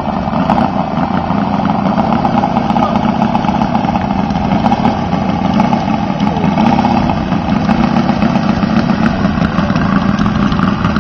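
Robart R780 seven-cylinder four-stroke radial engine of a scale model Fairchild PT-23 running steadily at low throttle while the model taxis.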